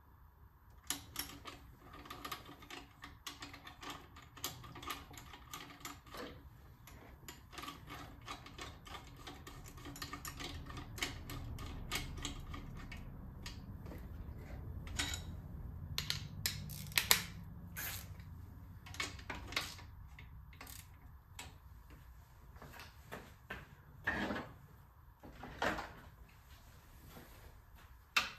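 Hand tools and metal fittings clicking and clinking as a turbocharger is fitted to the engine's exhaust manifold, with scattered light clicks and a few sharper metallic knocks in the second half.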